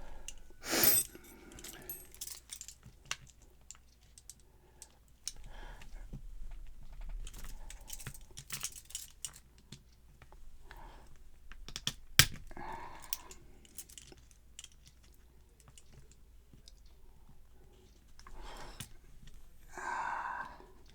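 Small clicks, taps and rattles of tools and metal parts being handled while a padlock is taken apart, with one sharp click about twelve seconds in and a few short louder rustles.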